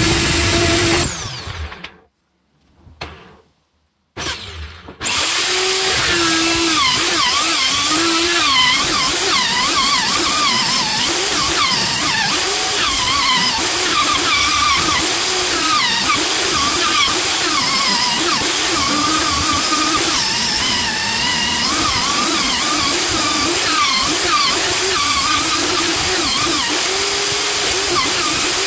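Handheld electric power tool working wood, its pitch wavering up and down with the load. It stops about a second in and starts again about five seconds in.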